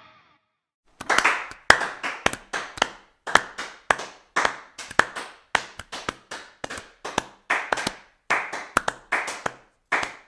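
Hands clapping slowly and unevenly, about two to three claps a second, starting about a second in.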